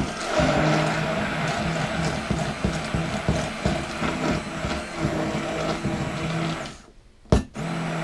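Handheld immersion blender motor running in a bowl of egg and cream cheese batter, with a steady hum and many small clicks from the blade working the mix. Near the end it stops for under a second, with one sharp click in the pause, then starts again.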